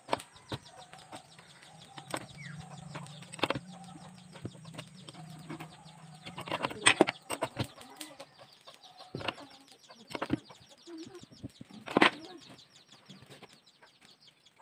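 A small steel wrench working the nut on a router spindle that carries a stack of cutters: light metal clicking and clinking as it turns, with a few sharper metal knocks spread through.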